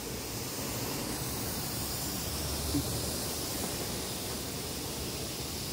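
Steady hiss with a faint low rumble underneath, unchanging throughout.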